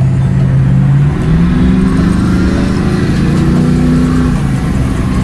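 Car engine accelerating: a steady drone that climbs in pitch in steps from about a second in, then falls away near the end.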